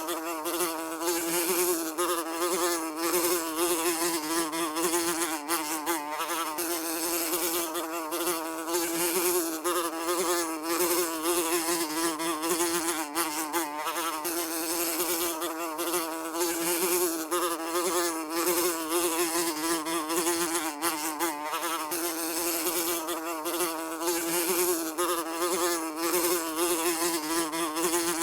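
Housefly buzzing continuously in flight, a steady drone whose pitch wavers slightly as the wingbeat changes.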